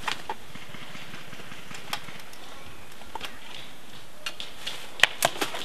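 Airsoft guns firing: scattered sharp cracks of single shots, with a quick run of four or five louder shots near the end.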